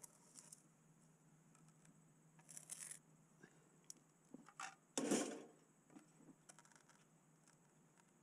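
Faint handling noises of a pressure-treated pine post and a spirit level being held and shifted against concrete steps: short scrapes and scratches, the loudest a brief scuff about five seconds in.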